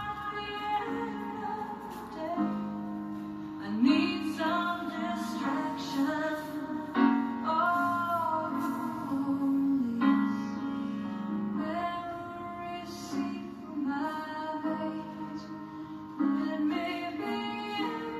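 Music: a woman singing slow, sustained phrases over a steady instrumental accompaniment.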